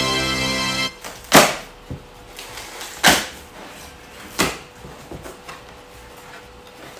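Background music that ends about a second in, then cardboard packaging being handled: three loud, brief rustles with quieter knocks and scrapes between them.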